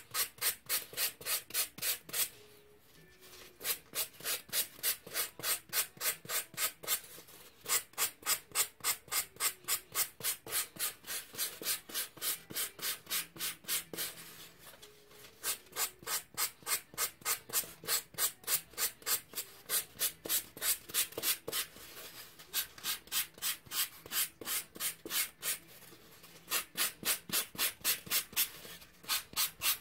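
Hand-held sandpaper sanding a carved ball-jointed-doll leg core in quick back-and-forth strokes, about three a second. The strokes stop briefly a few times.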